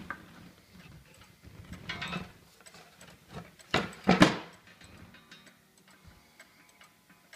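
Pendulum cuckoo clock's brass fusee movement ticking steadily while its heavy carved wooden case is turned around by hand. The turning brings handling and scraping noise about two seconds in, and the loudest scrape and knock around four seconds in.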